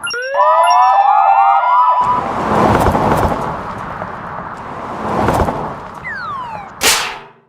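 Cartoon sound effects: rising whistle-like glides and a siren-like warble repeating about three times a second, then a noisy jumble with scattered hits, falling slide-whistle glides near the end and a loud sudden crash.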